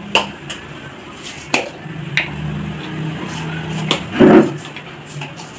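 Scattered clicks and knocks of kitchen utensils being handled, with one louder knock about four seconds in, over a faint low hum.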